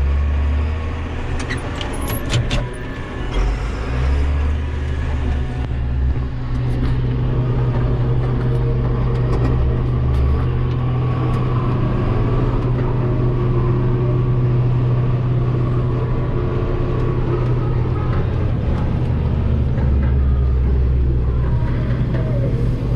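Combine harvester running steadily while harvesting soybeans, heard as a loud, even drone from the cab, with a few light clicks about two seconds in.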